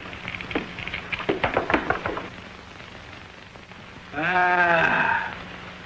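Dice clicking and clattering as they are shaken and rolled on a gambling table, then a drawn-out vocal cry about a second long.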